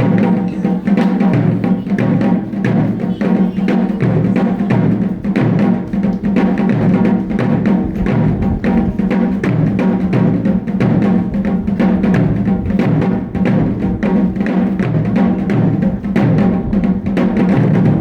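Japanese taiko drums played in a fast, steady stream of strikes.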